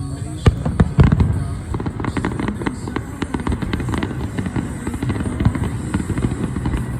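Fireworks going off in rapid succession: a dense run of bangs and crackles, the loudest about a second in.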